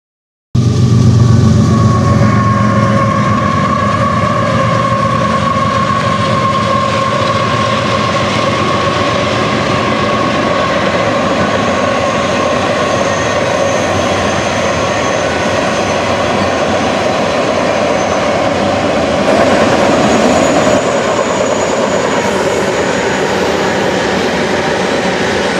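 Union Pacific freight train of autorack cars rolling past on a curve, a steady rumble of wheels on rail with thin, sustained high-pitched wheel squeal over it. It starts suddenly about half a second in.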